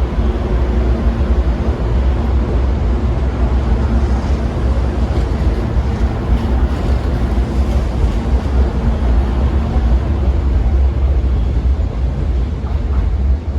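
Hankyu 1000 series electric train running at a steady speed: a loud, continuous rumble of wheels on rail with a steady hum over it.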